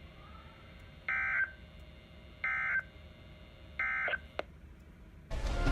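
Three short bursts of warbling digital data tones, each about a third of a second long and a little over a second apart: the EAS/SAME end-of-message code that closes a NOAA Weather Radio broadcast. Music starts just before the end and is louder than the bursts.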